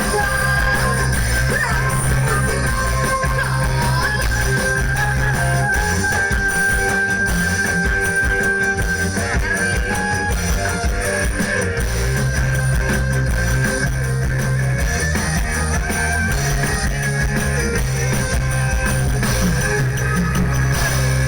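Live dangdut koplo band music: an instrumental passage led by guitar, with drums underneath.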